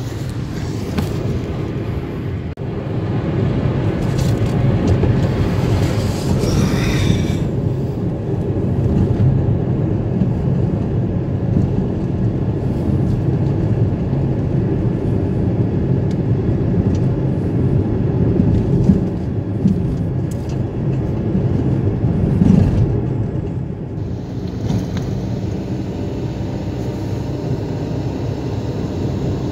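Steady low rumble of a car's engine and tyres heard from inside the moving car, with a short high rising sound about seven seconds in.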